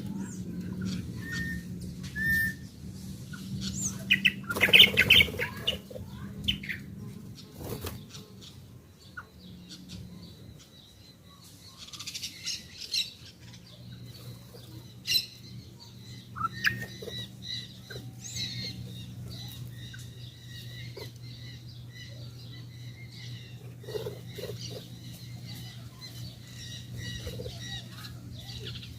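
Birds feeding: wings flapping and scattered short chirps and calls, busiest about five seconds in, over a steady low hum.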